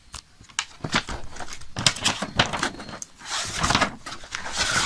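Paper and album packaging being handled: rustling and crinkling with light clicks and knocks, busiest in the second half, as the folded poster booklet is worked out of the album box.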